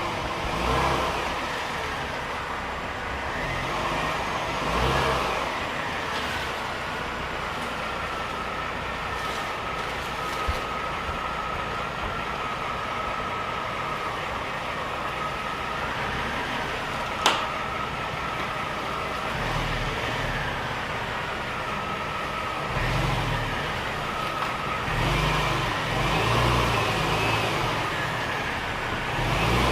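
Mercedes-Benz E350 (W211) V6 running at low speed while being maneuvered into a tight garage, its engine note rising and falling with each push of throttle. A single sharp click sounds about halfway through.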